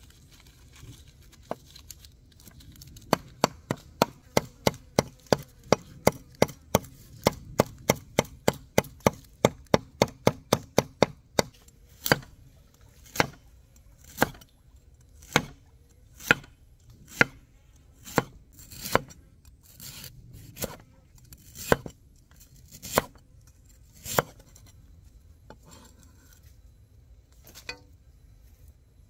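Knife chopping food on a cutting board. It starts with a fast, even run of about three strikes a second, then slows to single chops about once a second before stopping.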